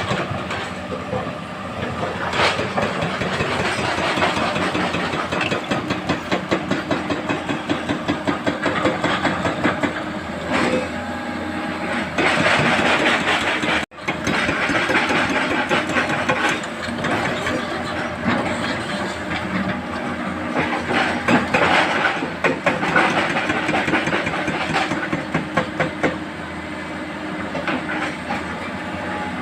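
Diesel engines of excavators and a dump truck running under load, with a steady hiss and dense clattering. The sound drops out for an instant about halfway through, then carries on.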